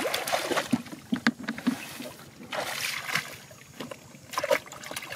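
Muddy shallow water sloshing and splashing as a person wades through it and gropes by hand in the mud. The splashes are irregular, several in a few seconds.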